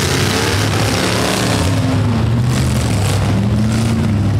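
Several demolition derby cars' V8 engines revving at once, their pitches rising and falling unevenly and overlapping.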